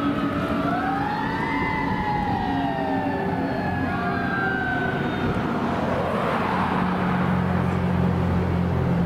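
Fire engine siren wailing, several rising and falling tones overlapping, fading out after about five seconds. A steady low engine hum takes over for the rest.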